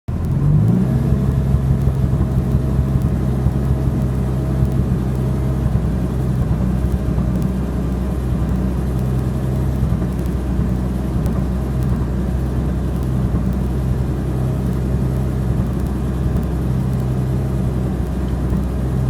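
BMW E46 M3's S54 inline-six engine running at a steady low speed, with no revving.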